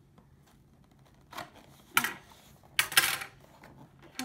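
Scissors cutting and scraping through the packing tape on a cardboard box seam: a few short, scratchy strokes, the loudest about two and three seconds in.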